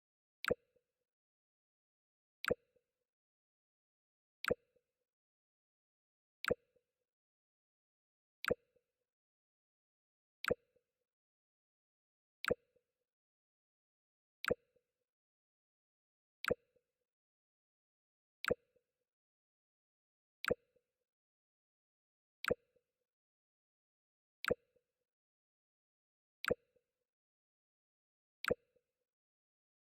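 Mac OS X 'Jump' sound effect: a short sharp click with a brief low tone, played over and over every two seconds.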